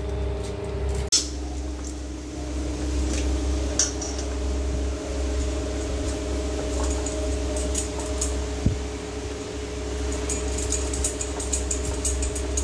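A motor's steady hum, with a few light clinks of steel kitchen utensils, more of them near the end.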